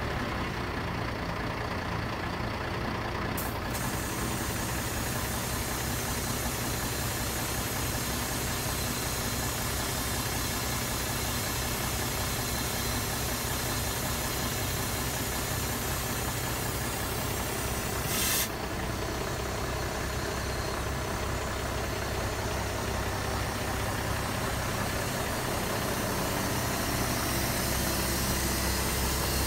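Scania military hooklift truck's diesel engine running steadily while it drives the hydraulics that swing the hook arm up, with a short hiss about eighteen seconds in.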